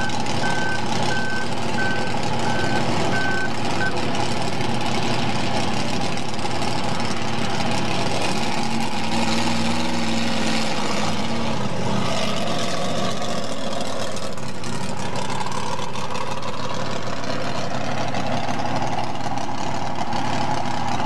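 A vehicle's reversing beeper sounds about twice a second for the first few seconds, then stops. Under it and afterwards, a small pulling tractor's engine runs loud and steady as it drags a weight-transfer sled down the track.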